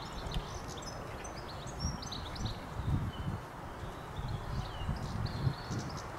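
Small birds chirping and singing, many quick high notes and short downward-sliding calls, over an uneven low rumble that surges now and then.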